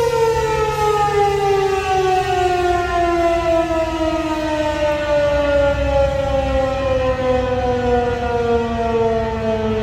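American Signal Tempest T-128 outdoor warning siren, an electromechanical rotating siren, winding down at the end of its steady Alert signal. Its pitch falls slowly and evenly throughout.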